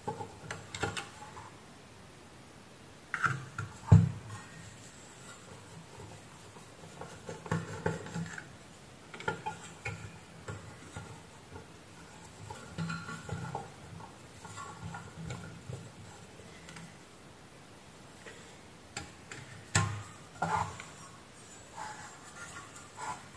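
Screwdriver working screws inside a variable frequency drive's sheet-metal case: scattered clicks, scrapes and metallic clinks of the tool and the case being handled. A sharp knock comes about four seconds in and another near twenty seconds.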